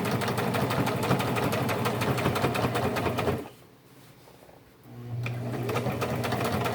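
A Brother electric sewing machine stitching a denim jeans hem with a rapid, even needle rhythm. It stops about halfway through, then starts stitching again about a second and a half later.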